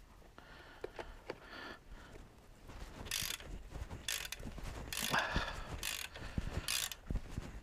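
Ratchet clicking as a coil spring compressor's threaded rod is wound off to release the tension on a strut's coil spring. It comes in short bursts, one per stroke of the handle, about once a second from about three seconds in.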